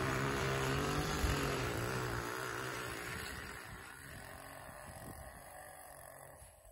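Gas-powered lawn edger's small engine running, growing steadily fainter as it moves away.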